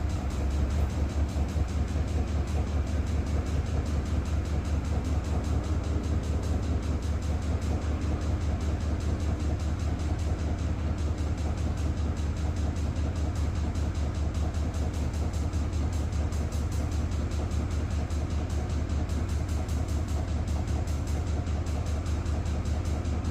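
Siemens washing machine spinning, with a fast, even rhythmic knock throughout. The owner suspects it comes from the drum's drive pulley.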